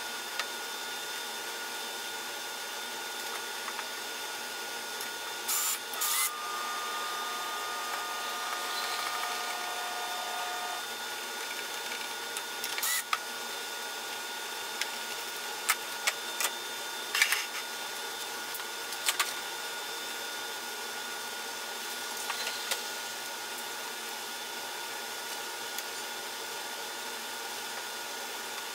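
Steady machine hum under scattered light clicks and knocks of small hinges and screws being fitted and driven by hand with a screwdriver. A steady two-note whine sounds for about five seconds near the start.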